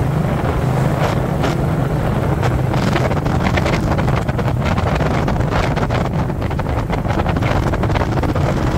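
Motorcycle engine running steadily during a ride, with heavy wind buffeting the camera microphone in gusts.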